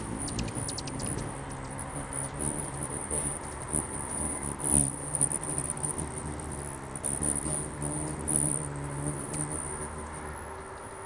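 Hummingbird wings whirring at a nectar feeder as the birds hover and come and go: a wavering low buzzing hum, with a few short sharp ticks. A steady high-pitched whine runs underneath.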